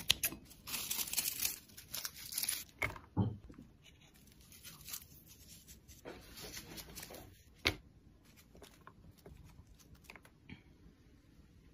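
A knife cutting through thin slices of cured meat on a cutting board, with a crisp tearing crackle for the first few seconds. Then quieter scattered taps and clicks, with one sharp click past the middle.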